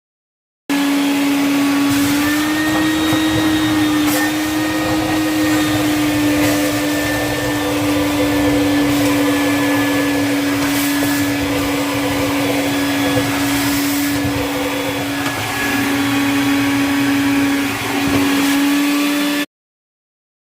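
An electric motor running steadily with a constant hum over a rushing hiss, starting and then cutting off abruptly near the end.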